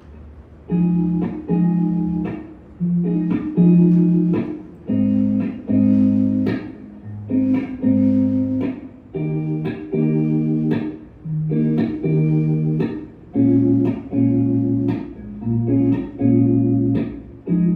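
Live band's instrumental intro: electric guitar playing rhythmic chords in short stabs, with bass guitar notes beneath. It starts under a second in, and no vocals have entered yet.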